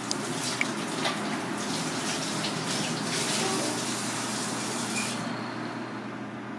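Water running from a tap, a steady hiss that stops about five seconds in.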